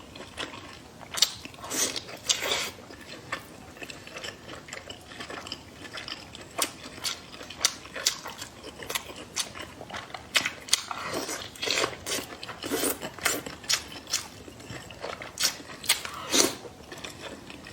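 Close-up eating sounds: chewing and biting, with many irregular sharp clicks and wet smacks.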